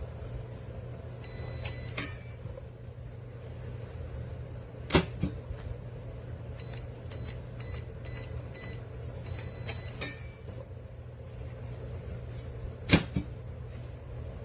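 Keypad beeps of a biometric pistol safe: a few short electronic tones about a second in and a longer series of beeps from about seven to ten seconds, as a code is keyed in. Four sharp clunks of the safe's lid or latch fall among them, over a steady low hum.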